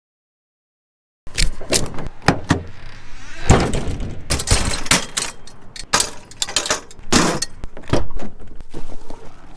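Silence for about the first second, then a rapid run of close knocks, clunks and rattles: a small camera being handled and knocked about around a pickup truck's bed and doors.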